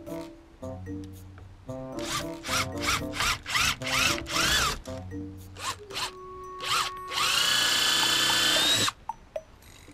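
Power drill run in short trigger bursts, its pitch rising and falling with each, then held steady for nearly two seconds near the end before stopping, over background music with a stepping melody.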